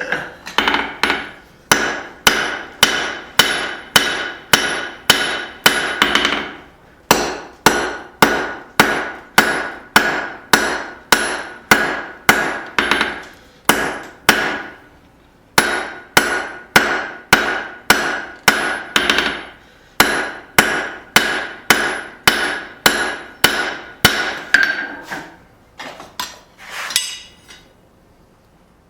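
Hammer blows on hot high-carbon rebar over a ringing anvil, forging a tong jaw, at about two blows a second in runs with short pauses; the hammering stops about 25 seconds in.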